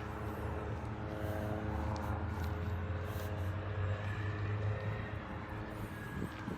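A distant engine drones steadily. It grows louder over the first few seconds, then fades, as a vehicle or plane does when passing.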